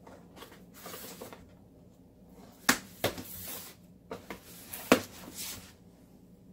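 Cardboard box being opened by hand: the flaps rustle and scrape, with two sharp snaps, one about three seconds in and a louder one about two seconds later.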